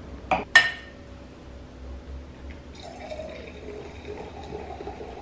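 A champagne flute set down on the table: two quick, sharp clinks with a brief glassy ring, the second the louder. Afterwards a faint steady fizz of liquid.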